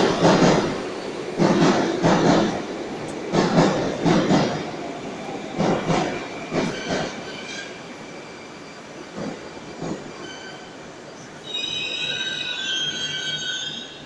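Metro train wheels clattering over rail joints in paired beats that space out and fade as the train slows. Near the end a steady high squealing tone sounds for a couple of seconds.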